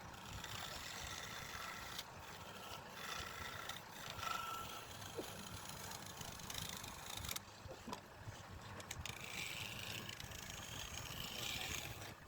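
Wood lathe running, with a tool scraping the spinning wood in an uneven, continuous hiss.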